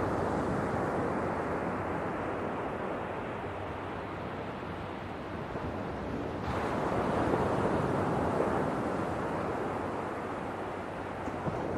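Ocean waves breaking on a shore: one breaker crashes in at the start and a second about six and a half seconds in, each swelling and then slowly washing back.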